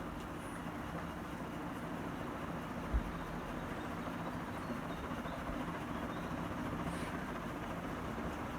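48-inch Starlight T348-WH+WC ceiling fan running: a steady whir of moving air with a low motor hum. A single low thump about three seconds in.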